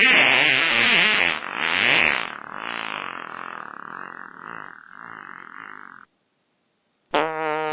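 Comedy sound effects played back to back: a loud wavering, croaky animal-like call that fades out over about six seconds, then, after a second's gap, a steady buzzing tone with a slight wobble starts near the end.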